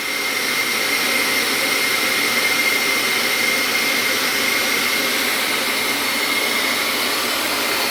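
Micro shop vacuum running steadily with a constant high whine, pulling suction through a vacuum clamp with its bleed valve fully open.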